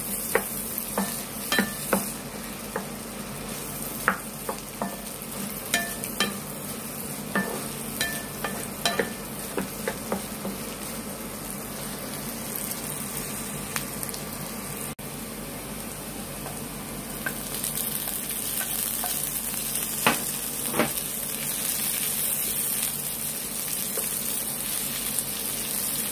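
Chopped onion, ginger and garlic sizzling in oil in a nonstick frying pan while a wooden spatula stirs them, tapping and scraping against the pan. The tapping is busiest in the first ten seconds and the sizzle grows a little louder and steadier in the second half.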